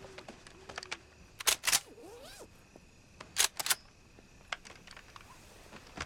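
Sharp clicks from camping gear being handled: two quick ones about a second and a half in, then three more about two seconds later, over a quiet night-forest background.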